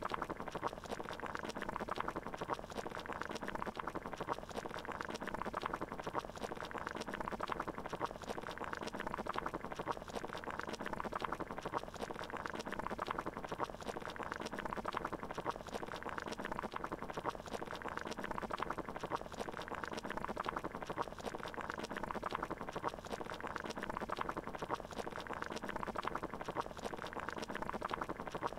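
Water at a rolling boil: a steady, dense bubbling that never breaks.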